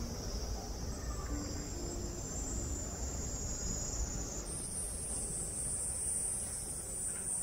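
Cicadas singing: a steady, high insect buzz, joined about four and a half seconds in by a louder, higher-pitched chorus, over a low background hum.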